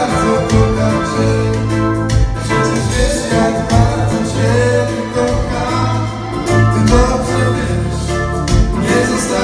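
Live band playing a song with singing over electric guitar, bass guitar, keyboards and drums, with a steady bass line and regular drum beat.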